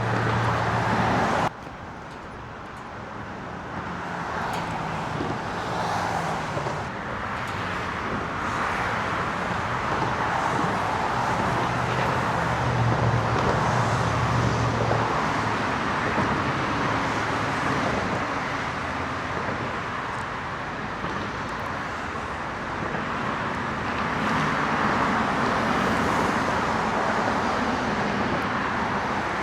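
Road traffic noise, a steady rush that swells and fades as vehicles pass. A louder low engine hum stops abruptly about a second and a half in.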